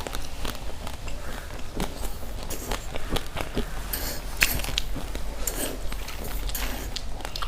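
Close-miked crunching and chewing of raw, uncooked rice grains: irregular sharp crunches, a few per second.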